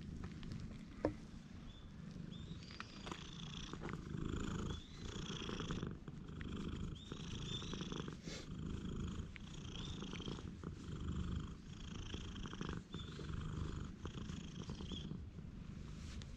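Orange-and-white cat purring close up while being stroked, a continuous low rumble that pulses about once a second.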